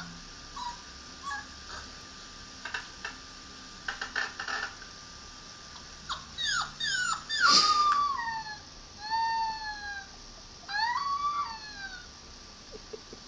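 A dog whimpering: a run of high-pitched whines that slide up and down in pitch, starting about halfway in and loudest soon after, preceded by a few faint clicks.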